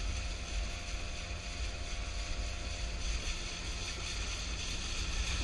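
Outboard motor running steadily, pushing a small jon boat along at speed, with wind rumbling on the microphone.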